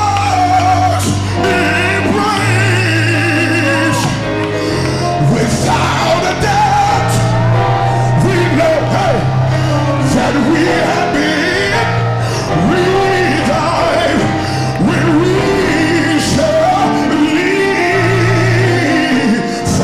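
Live gospel music: a male soloist sings wavering, sliding vocal runs with no clear words, over long held bass notes from the band.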